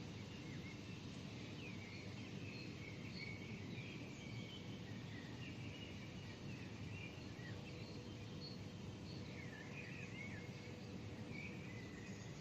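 Several small birds chirping and twittering in short calls over the steady low hum of a city at dawn.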